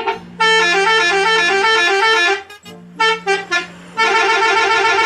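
Indonesian 'telolet' bus horn, a multi-tone horn rapidly alternating between notes to play its jingle. It comes in three bursts; the first lasts about two seconds, and the later two are shorter.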